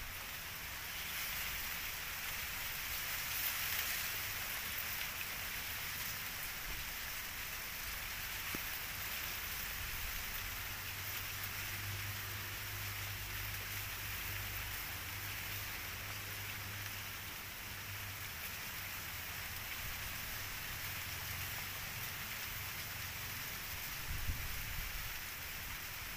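A steady, even hiss of outdoor background noise, with a low hum through the middle of the stretch and a soft bump near the end.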